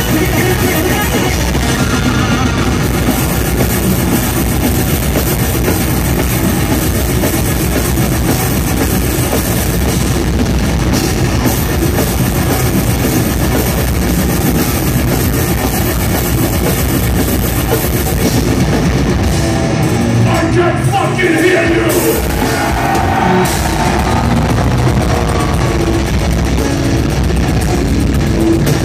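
Death metal band playing live and loud: heavily distorted electric guitars, bass and fast drums, heard from the crowd. About twenty seconds in, the low end drops out briefly before the full band comes back in.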